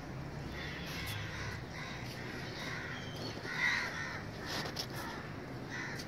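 Birds in a flock overhead calling with short harsh calls, about one a second, the loudest about three and a half seconds in, over a low steady background hum.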